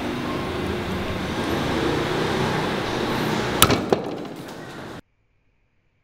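A steady rushing noise, then a sharp crack about three and a half seconds in with two lighter knocks right after, as a hammer smashes a whole garlic bulb on a wooden chopping block. The sound cuts off suddenly about a second later.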